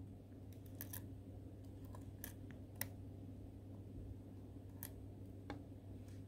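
Faint, scattered clicks of metal tweezers against a laptop key's small plastic scissor retainer clip as its bottom hook is fitted into the keyboard, over a steady low hum.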